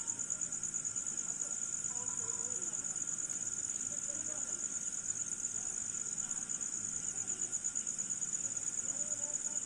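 Insects, crickets by their sound, trilling steadily in a continuous high-pitched, rapidly pulsing chorus.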